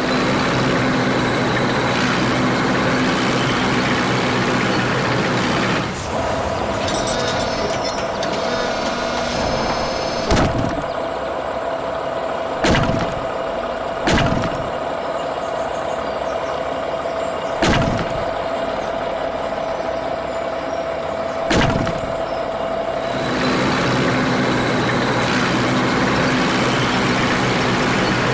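Heavy machinery running steadily, with a steady whine through the middle stretch and five sharp knocks spaced a few seconds apart within it.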